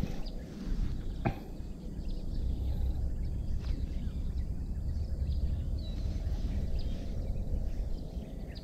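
Steady low rumble of handling and outdoor noise on the microphone while a baitcasting reel is cranked in, with one sharp click about a second in and a few faint bird chirps.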